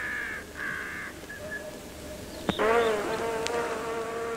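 Cartoon insect buzzing: two short buzzes in the first second, a sharp click about two and a half seconds in, then a steady, evenly pitched buzz held to the end.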